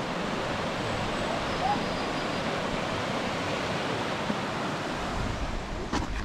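Steady rushing noise with no clear source, with a faint short chirp about a second and a half in and a brief click near the end.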